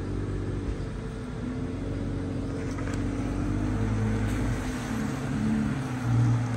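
Off-road Jeep engine running steadily at low revs as the 4x4 crawls along, swelling a little about six seconds in.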